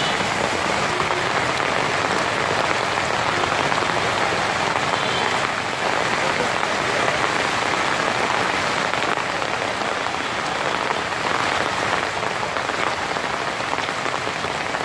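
Heavy rain pouring steadily onto a flooded road, a dense, even hiss of drops striking standing water.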